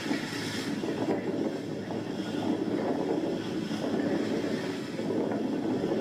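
Steady low rumble of a boat's engine with wind buffeting the microphone, on the soundtrack of footage of an erupting volcano shot from a boat.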